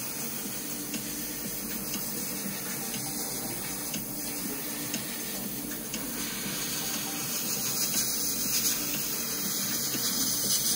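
Airbrush hissing steadily as thinned grey paint is sprayed on in a mottle, with a low steady hum underneath; the hiss grows a little louder about seven seconds in.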